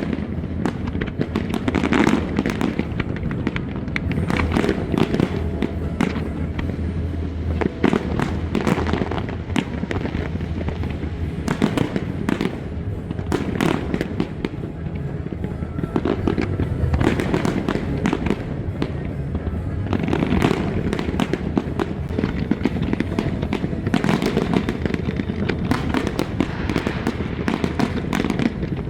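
Fireworks display: a continuous, dense string of bangs and crackles from bursting aerial shells, with no pause.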